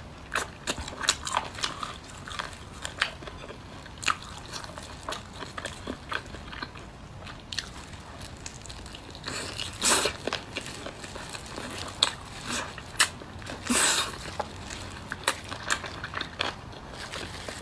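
Close-up mouth sounds of someone eating roast chicken wings: chewing, biting and wet lip smacks in quick, irregular clicks, with two longer, louder wet sounds about ten and fourteen seconds in.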